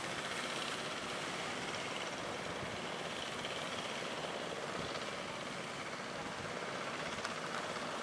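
Motors of outrigger fishing boats running steadily out at sea, mixed with the wash of surf and wind.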